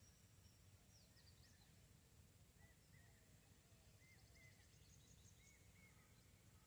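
Very faint bird calls: short arched notes, mostly in pairs, repeating every second or so over a low steady rumble.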